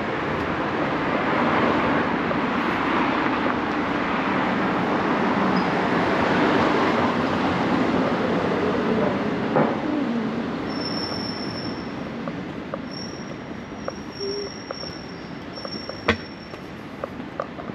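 A large vehicle passing, its rumble swelling over the first couple of seconds and fading away from about ten seconds in. After it come light footsteps on the stone pavement.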